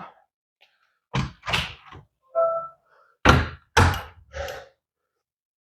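About six sharp thunks and clacks from a newly installed smart door lock as its latch and deadbolt are worked and tested, with a brief tone about two and a half seconds in. The bolt is now throwing all the way.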